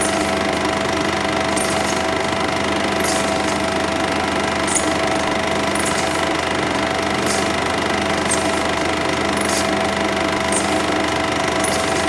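Cine projector running with a steady mechanical whirr and hum, with faint light ticks about once a second.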